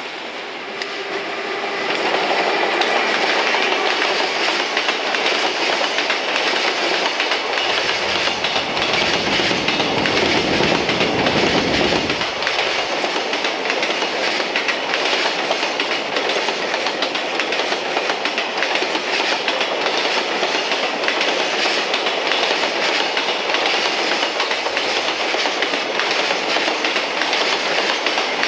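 EF210 electric locomotive hauling a long container freight train past, growing louder over the first couple of seconds, with a deeper rumble as the locomotive goes by about eight to twelve seconds in. Then the container wagons' wheels clatter steadily over the rail joints.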